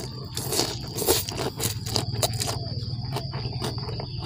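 Close-miked eating sounds: noodles slurped up, then chewing with many small wet clicks and smacks.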